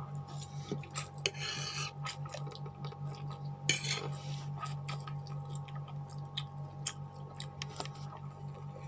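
Noodles being slurped and eaten, with a fork clicking and scraping against the plate; two longer slurps, about one and a half seconds in and again near four seconds.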